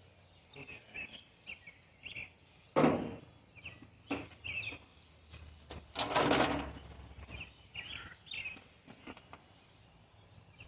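Small birds chirping in the background while someone handles parts, with a sharp knock about three seconds in and a louder rustling clatter lasting about half a second around six seconds in.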